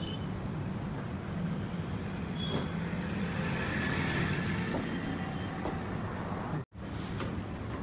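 Road traffic going by on a city street: steady engine rumble and tyre noise, swelling as a car passes in the middle. The sound cuts out for a split second near the end.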